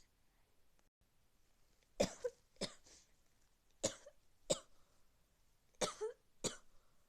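A person with a cold coughing: three double coughs, about two seconds apart, starting about two seconds in.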